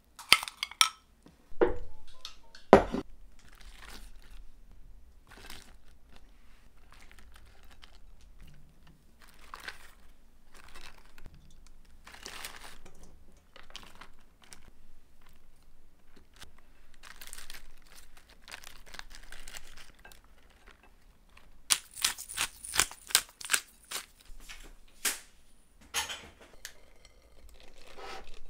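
Food-prep handling sounds: a couple of sharp knocks of a spoon against a glass measuring cup, then the crisp rustle and crinkle of napa cabbage leaves and bean sprouts being handled and laid on a plate, with a quick run of sharp crinkly clicks near the end.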